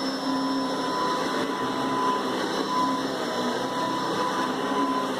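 Hoover Decade 800 upright vacuum cleaner running steadily, its motor and fan giving an even rushing sound with a steady whine. It is a very smooth runner, freshly fitted with a new fan, belt and carbon brush.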